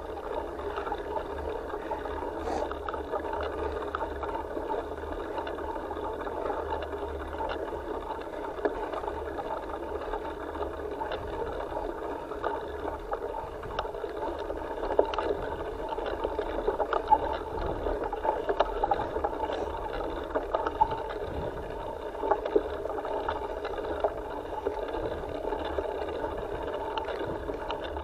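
Bike riding along a dirt trail, heard from a handlebar-mounted camera: a steady rumble of tyres and wind, with scattered sharp rattles and clicks that come more often in the second half.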